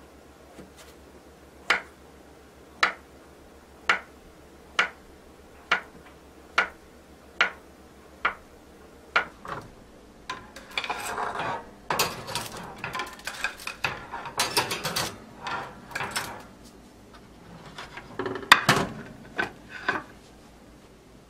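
Chef's knife cutting through avocado onto a wooden cutting board, a sharp tap about once a second. Then a stretch of irregular scraping and clattering as toast is taken out of a Balmuda toaster oven, with a few loud sharp knocks near the end.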